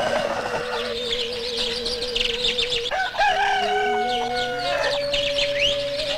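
A rooster crows once, about three seconds in, among small birds chirping, over a steady held musical note.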